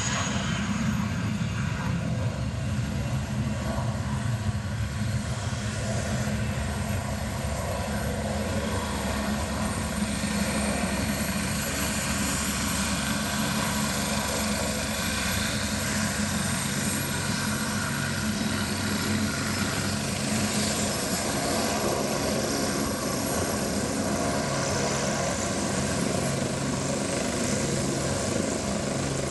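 Helicopter running steadily, its rotor and engine making a constant low drone; a high whine fades away in the first second or two.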